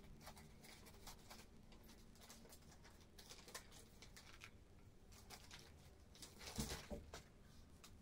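Near silence with faint, scattered clicks and rustles of painting supplies being handled, and a louder bout of rustling about six and a half seconds in.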